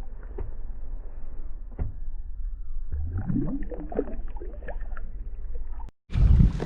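Wind rumbling on the microphone over water sloshing around a kayak, with small scattered knocks of handling; the sound drops out briefly near the end.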